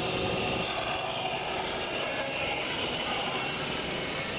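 Table saw running and cutting through a wooden board: a steady motor whine with a hiss that brightens about half a second in as the blade works through the wood.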